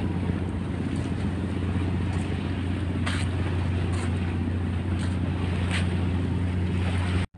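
Boat engine running steadily, a constant low drone heard aboard a vessel during river towing, over water and wind hiss, with brief hisses about three, four and six seconds in. The sound cuts off sharply just before the end.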